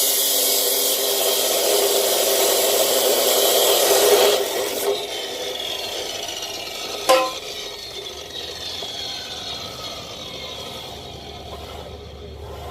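Power saw cutting steel tube: a loud, rasping cut with a steady whine that ends about four seconds in. The motor then winds down with a slowly falling whine, and there is one sharp knock about seven seconds in.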